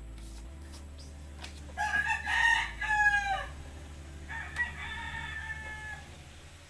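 Rooster crowing: a loud crow about two seconds in that drops in pitch at its end, then a fainter, longer crow.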